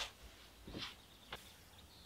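Faint handling noises: a click, a short soft scuff just under a second in, and a sharp tick a moment later.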